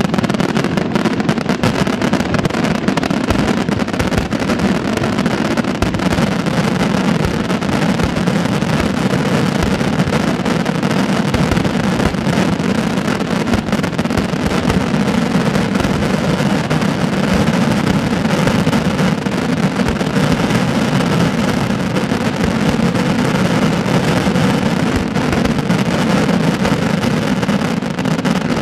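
Dense fireworks barrage: aerial shells and mines bursting in such quick succession that the bangs run together into a continuous rumble, with crackle on top.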